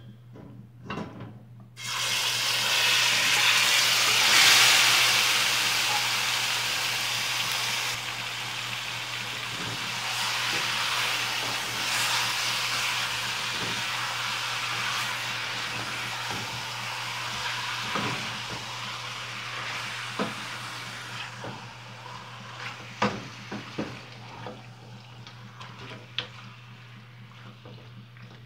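Marinated chicken pieces hitting hot oil in a stainless steel pot: a loud sizzle starts suddenly about two seconds in, then slowly dies down as the meat is stirred. Scattered knocks and scrapes of a wooden spatula against the pot come through, clearer near the end, over a steady low hum.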